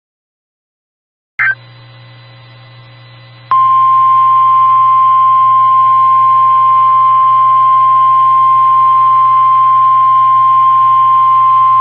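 NOAA Weather Radio 1050 Hz warning alarm tone: a loud, steady single high tone starting about three and a half seconds in, over a low radio hum. It signals that a weather alert broadcast follows. A brief click and hiss come just before it, as the receiver opens.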